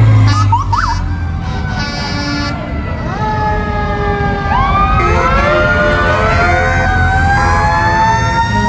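Emergency sirens of a fire engine parade passing close by: a few quick upward chirps about half a second in, siren tones sliding slowly down in pitch, then from about halfway a siren winding up and rising steadily in pitch, over the low rumble of the vehicles.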